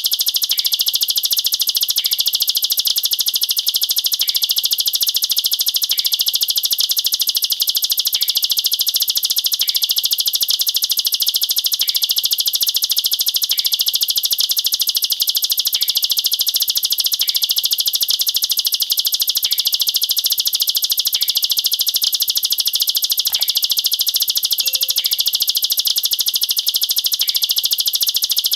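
Ciblek sawah (plain prinia) singing its 'nembak rapat' song: a very fast, unbroken high-pitched rattling trill with no pauses, the tight 'machine-gun' delivery used as a tutor song for young birds.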